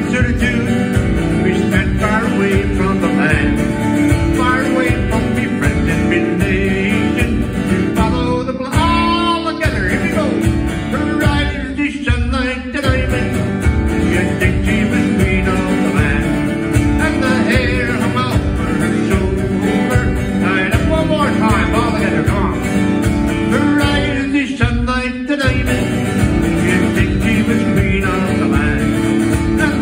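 Live country-style music: a steel-string acoustic guitar strummed in a steady rhythm, with a man's voice singing at times.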